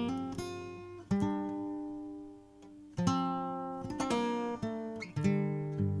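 Background music played on a plucked acoustic guitar: chords and notes are struck sharply and left to ring and fade, a new one about every second or two.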